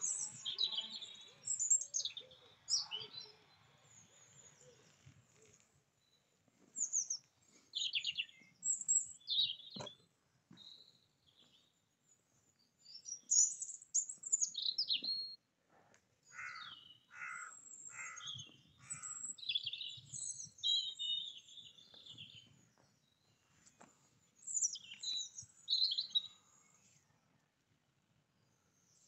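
Small songbirds singing and chirping in short high phrases and trills, in bouts with brief gaps. About halfway through, one bird gives a run of about five evenly spaced, lower repeated notes.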